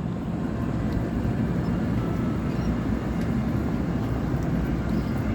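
Diesel locomotive of a Siemens SC-44 Charger running under power as the train pulls out of the station, a steady low rumble.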